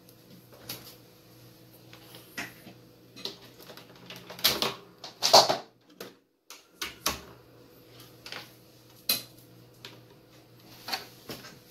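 Scattered clicks and knocks of handling the satellite receiver and pushing its mains plug in, with two louder knocks near the middle.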